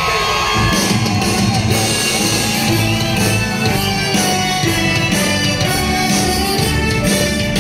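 Loud music with guitar and a heavy, steady bass beat that comes in about half a second in.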